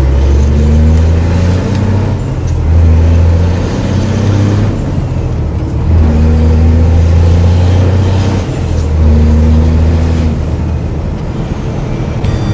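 Scania 124 360 truck's diesel engine heard from inside the cab, pulling up through the gears: the engine note rises, drops off briefly at each shift, and climbs again, four pulls in all.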